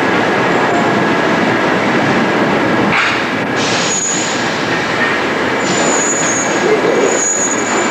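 Paris Métro line 12 train running past along the track, a steady loud rumble of wheels on rail. Its wheels give a high-pitched squeal briefly about halfway through and twice more near the end, and a couple of sharp knocks come shortly before the first squeal.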